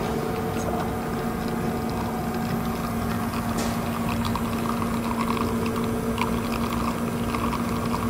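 Rotary pump of a Rocket Giotto Evoluzione V2 espresso machine running during a shot, a steady even hum with the brew pressure holding at about 9 bar.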